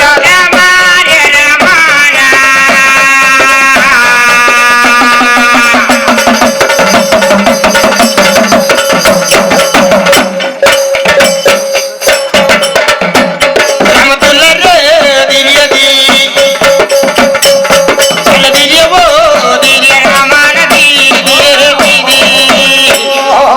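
Indian folk devotional music: drumming in the manner of tabla under a steady held note, with a melodic line that bends like a singing voice, strongest in the second half.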